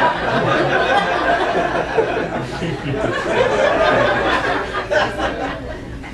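Comedy club audience laughing together, fading near the end.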